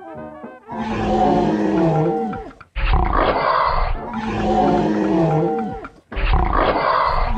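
Dinosaur sound effects: a long wavering, moaning call alternating with a short rough roar, the pair repeating about every three and a half seconds.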